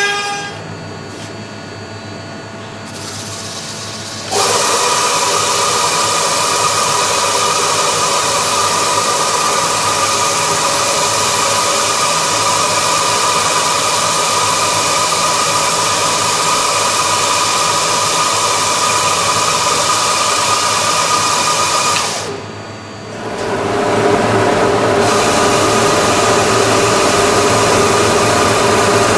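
Round-rod sanding machine running steadily with a whine as a wooden chair-leg rod is fed through its sanding head. It starts suddenly about four seconds in, dips briefly about two-thirds of the way through, then carries on with a changed pitch as the curved end is worked.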